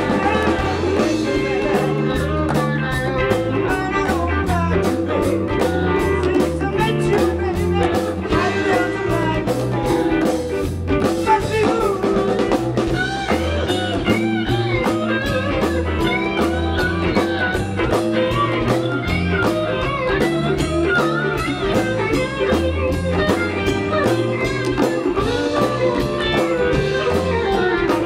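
Live rock band playing a blues number: electric guitars over electric bass and a drum kit with steady cymbal hits. A lead guitar plays bent notes through the middle of the passage.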